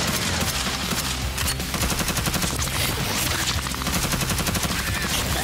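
Rapid gunfire from several AR-style carbines, shots coming in fast strings with a sharp crack each.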